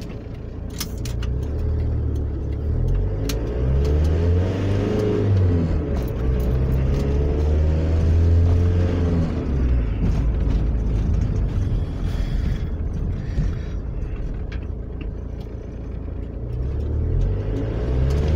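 A vehicle's diesel engine, heard from inside the cab, pulling away and accelerating. Its pitch rises and drops back several times as it shifts up through the gears, over a steady road rumble.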